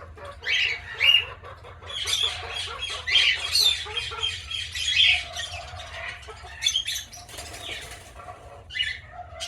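A mixed aviary flock of cockatiels, parakeets and lovebirds chirping and squawking over one another, with bursts of wing-flapping as loose birds fly about. A low steady hum sits underneath.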